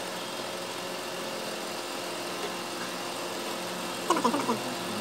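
An engine idling steadily in the background: an even mechanical hum that holds the same pitch throughout.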